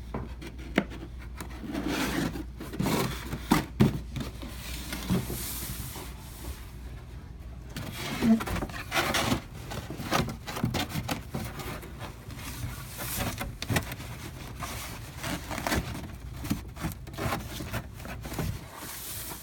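Corrugated bin panels being folded and handled, with rubbing, scraping and sharp clicks as tabs are pushed through slots and tucked into their locks.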